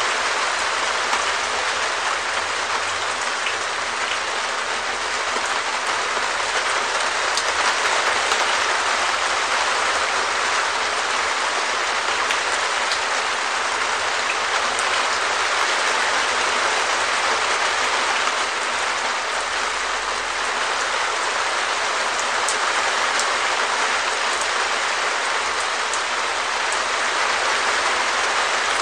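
Steady rain falling on a perspex shed roof: a dense, even hiss of drops on the plastic sheeting, with the odd sharper single drop tick standing out.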